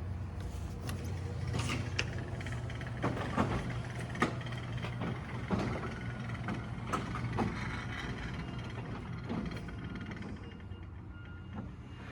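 LiftMaster garage door opener running a sectional garage door up: a steady motor hum with the rollers and panels clattering and knocking irregularly. The sound thins out about ten seconds in as the door reaches the top.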